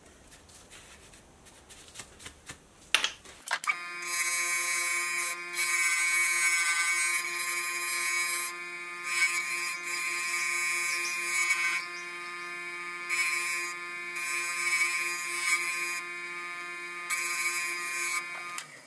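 A small electric motor with a grey abrasive wheel on a tapered spindle starts about three and a half seconds in and runs with a steady whine. A mild steel part is pressed against the wheel in several separate passes, each adding a hissing grind. It stops just at the end. A few faint clicks come before it starts.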